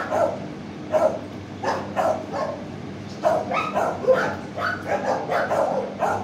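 Several shelter dogs barking in a kennel, a dozen or so barks in irregular runs with a short pause near the middle, over a faint steady low hum.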